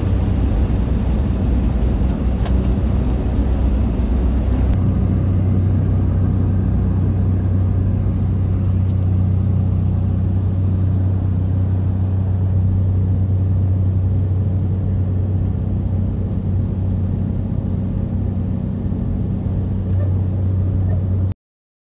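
Cabin noise of a small high-wing propeller plane moving on the runway: a loud, steady engine and propeller drone. It cuts off suddenly near the end.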